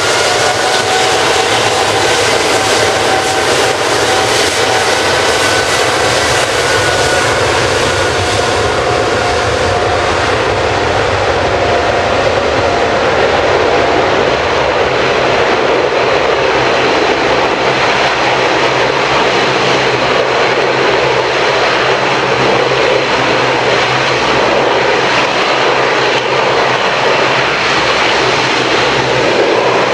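Boeing 777 jet engines at take-off power as the airliner rolls down the runway: a steady, loud roar. A high engine whine rises in pitch at the start, then holds steady and fades out about halfway through.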